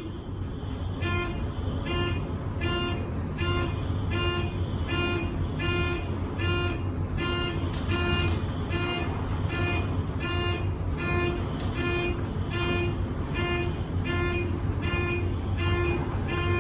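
Fire alarm horn sounding in short, evenly spaced blasts, about one every three-quarters of a second, over a steady low hum.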